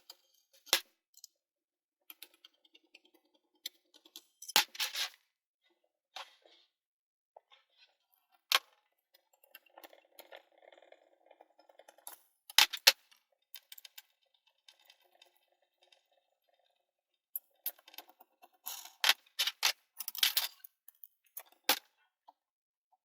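Small metal clicks, clanks and rattles of hand tools and screws being worked while the Y-axis belt bracket is unbolted from the 3D printer's bed carriage. The sounds come irregularly, with a cluster of clanks and a rattling scrape near the end.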